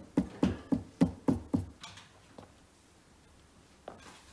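Hand knocks on the end panel of a particleboard cube shelf, seating it onto its wooden dowels: a quick run of about seven knocks, roughly four a second, then a couple of fainter ones.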